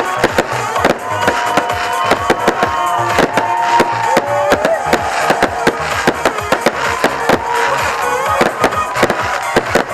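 Fireworks going off in rapid bangs and crackles, several a second, with music playing underneath.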